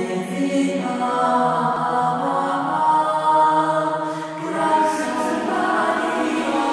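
Background music with held, choir-like sung notes that move slowly from one chord to the next.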